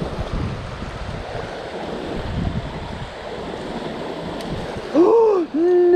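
Steady rush of a small creek running over riffles and pouring out of a culvert. About five seconds in, a man lets out two drawn-out groans of frustration, the second longer, rising and then falling in pitch, after a trout has missed his dry fly.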